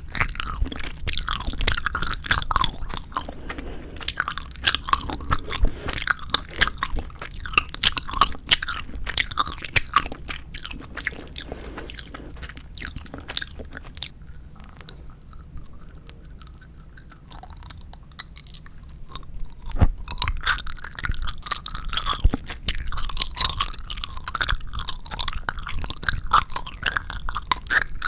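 Close-miked chewing of 4D gummy jelly candy: a dense run of small clicks and smacks, quieter for a few seconds past the middle, then picking up again.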